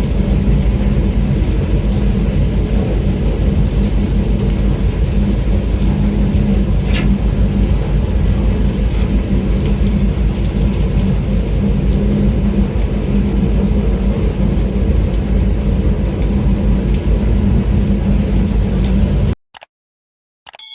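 Boat engine running steadily with a low rumble and hum, with rain falling over it. It cuts off suddenly about a second before the end.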